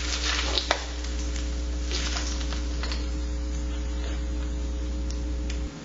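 Steady low electrical hum under a faint hiss, with a couple of light clicks of a utensil against the plate about half a second in; the hum cuts off just before the end.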